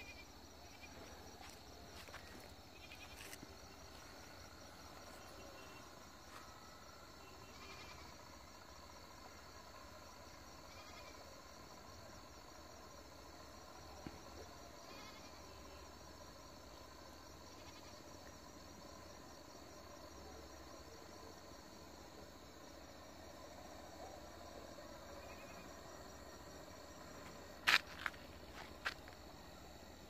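Faint field ambience of insects trilling steadily in high, finely pulsing tones, with a few short faint chirps. Two sharp clicks come close together near the end and are the loudest sounds.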